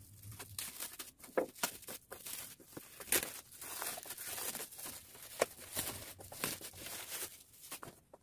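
Black plastic shipping bag being cut open with scissors and torn away from a cardboard box, the plastic crinkling and tearing in a run of irregular crackles.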